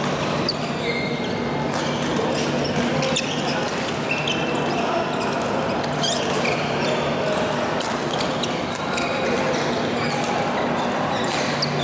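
Badminton rackets hitting shuttlecocks and shoes squeaking on the court flooring, with sharp irregular hits from several games at once in a large echoing hall, over a steady hum and low background chatter.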